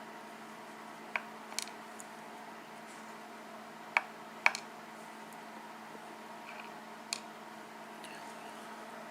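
A few small sharp clicks and taps, about five spread over several seconds, with the two loudest about half a second apart near the middle, over a faint steady hum. These are small lock pins and the padlock core being handled and dumped out over a tray.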